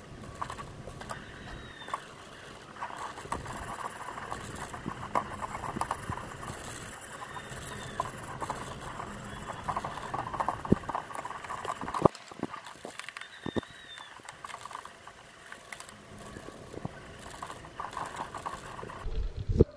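Hand work on a studio flash unit during restoration: irregular scraping and rubbing with scattered clicks and taps, and a few sharper knocks around the middle.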